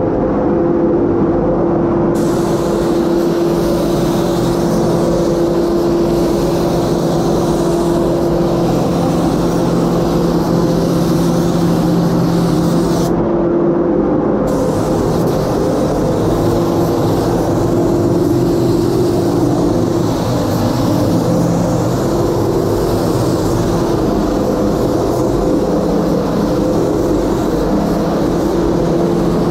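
Paint spray gun hissing with compressed air as it sprays the car. The hiss starts about two seconds in and cuts out briefly around halfway through, when the trigger is let go. A steady droning hum runs underneath.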